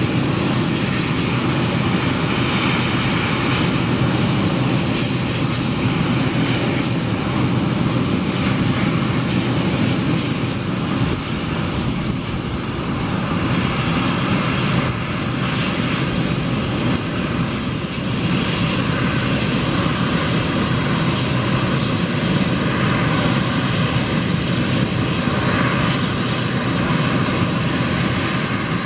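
Aero L-29 Delfin's single Motorlet M-701 turbojet running with a steady high whine over a broad rush of jet noise as the jet lands and rolls out along the runway.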